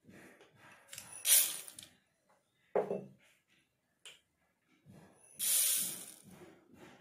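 Dry grains poured from a small glass bowl into a stainless-steel mixer-grinder jar of dried red chillies, twice: a short hissing patter of grains hitting the steel and chillies, about a second in and again near the end. A brief knock comes between the two pours.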